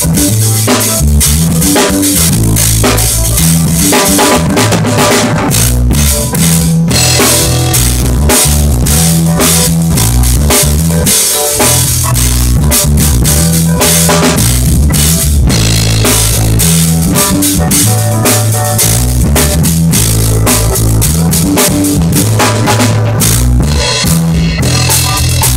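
Drum kit playing with kick drum and snare, over music with a bass line, loud and continuous.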